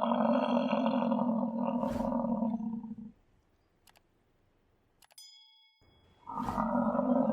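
American bison bellowing: one long, low, pitched roar of about three seconds, then a second roar beginning about six seconds in. A brief high ringing note sounds in the quiet gap between them.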